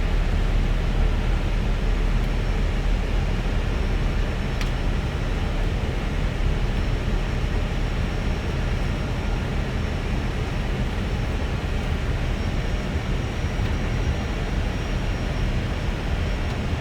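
Steady rush of airflow and engine noise in an Airbus A320 flight deck on approach, with a faint thin high whine and a single click about four and a half seconds in.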